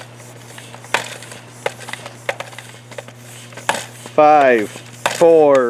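Harbor Freight high-flow hand floor pump being worked steadily, a short click on each stroke about every 0.7 seconds, as it inflates a flat car tire. About four seconds in the pumping gives way to a voice counting down.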